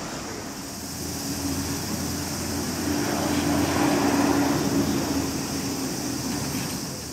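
A motor engine's drone passing by: it swells from about a second in, peaks in the middle and fades away near the end.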